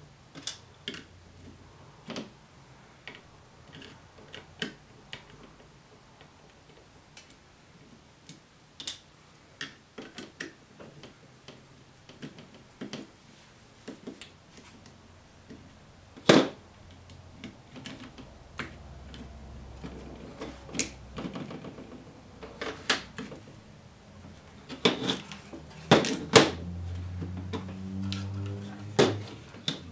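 Scattered light clicks and ticks of a small screwdriver turning screws out of the plastic housing of a Milwaukee MA887 digital refractometer. There is a louder plastic knock about halfway through and a cluster of knocks in the last few seconds as the housing is handled.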